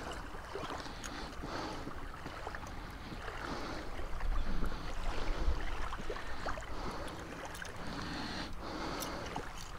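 Wind buffeting the microphone in gusts over the wash of small waves at the shore, with a few faint clicks.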